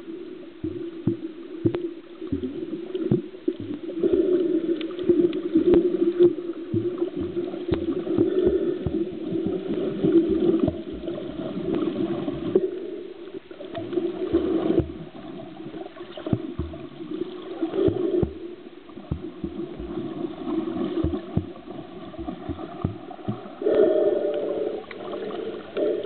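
Water sloshing and gurgling, muffled, with many short low knocks throughout.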